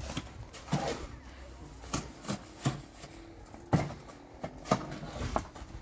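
A series of irregular knocks, roughly one a second, the loudest nearly four seconds in.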